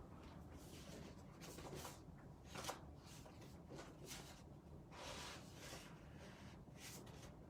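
Faint, intermittent rustling and sliding of cardstock and paper being handled on a craft table: several brief rustles, with a sharper tap or snap a little under three seconds in.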